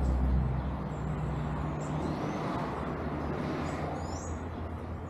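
Vehicle engine running steadily with a low, even hum. A few short bird chirps sound about two and four seconds in.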